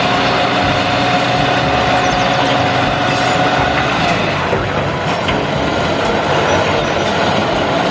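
Small diesel dump truck running while its hydraulic hoist tips the bed and the load of soil slides out, with a steady whine that stops about halfway through.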